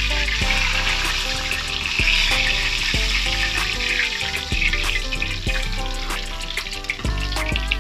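Tilapia deep-frying in hot oil in a steel wok, a dense sizzle that weakens after about four seconds as the fish are lifted out. Background music with a steady beat plays throughout.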